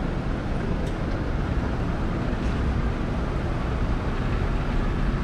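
City street traffic: a steady low rumble of cars on the road, with a couple of faint ticks.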